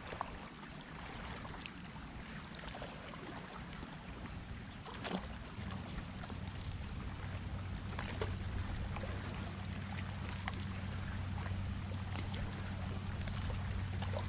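Steady low drone of a distant boat engine on the lake, coming in about five seconds in and holding, over a light hiss of water and wind with a few faint clicks. A brief high chirping comes twice in the middle.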